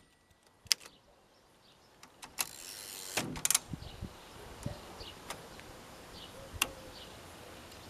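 1920 Underwood Standard manual typewriter being worked between bursts of typing: one short sliding, rasping movement of the mechanism about three seconds in, with a few separate clicks.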